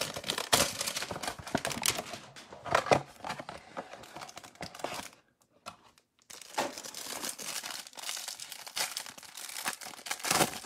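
Plastic wrapper crinkling and tearing as a hanger box of trading cards is opened, with a short pause about halfway through.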